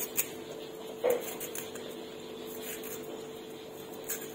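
Kitchen knife slicing a small yellow eggplant held in the hand, the slices dropping into a stone mortar: a few scattered clicks and taps over a faint steady hum.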